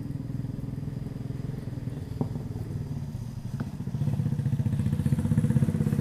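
A small engine running steadily, growing louder from about four seconds in, with a couple of faint clicks.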